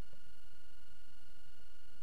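Steady hiss and low rumble picked up by a camera in an underwater housing, with a faint, steady high-pitched whine.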